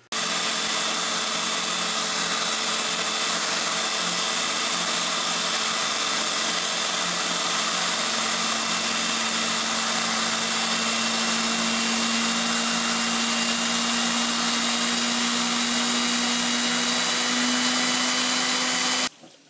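Tool post grinder internal-grinding the taper bore of a lathe-held collet chuck: a steady high-speed whine with a hissing grind of the wheel in the bore. It starts abruptly and cuts off suddenly just before the end.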